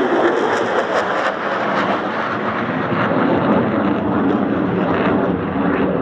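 Aircraft engine noise, loud and steady.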